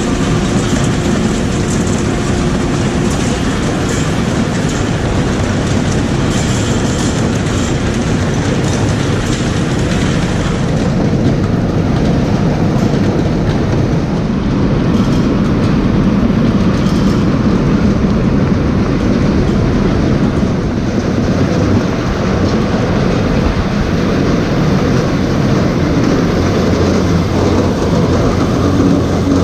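Heavy machinery running with a steady, loud rumble and a continuous rattling clatter; the higher hiss and rattle drops away about eleven seconds in.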